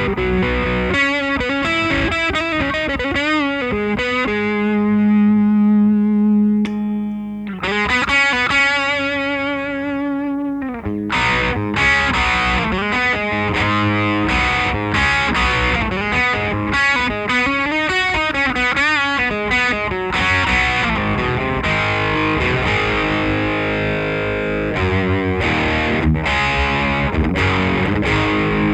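Electric guitar distorted through an original late-1980s Marshall The Guv'nor overdrive pedal, playing lead lines with string bends and vibrato. A long held note comes about five seconds in, and denser chordal riffing fills the last several seconds.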